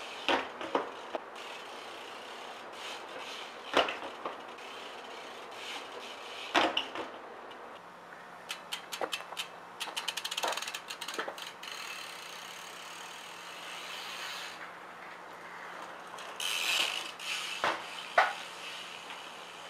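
BMX bike hopping and landing on concrete, giving several sharp knocks and rattles as the wheels hit the ground. About halfway through, the rear hub clicks rapidly as the bike rolls.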